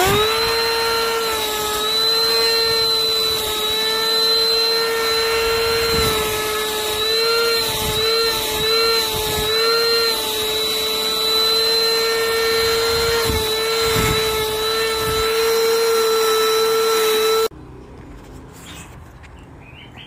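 Kadonio KC-VC96 cordless handheld vacuum cleaner running. It spins up quickly to a steady high whine at switch-on, wavers in pitch a few times in the middle and cuts off abruptly near the end.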